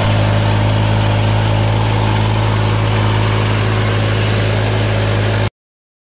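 Ford 3910 tractor engine running steadily at idle, a constant low drone that does not change in pitch. It cuts off abruptly near the end.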